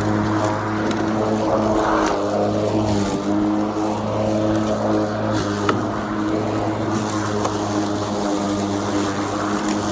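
Greenworks 80V brushless cordless lawn mower running, a steady motor-and-blade hum at an even pitch.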